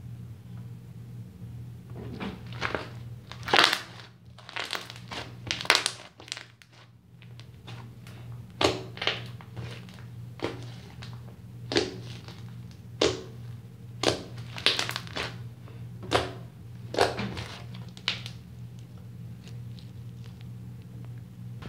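Homemade slime being squished, stretched and pressed against a granite countertop by hand, giving a series of sharp pops and clicks, roughly one a second, from about two seconds in until a few seconds before the end.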